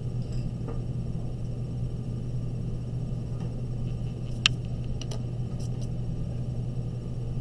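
Faint scratching of a marker tracing lines on paper, over a steady low electrical hum. A single sharp click comes a little past halfway, followed by a few faint ticks.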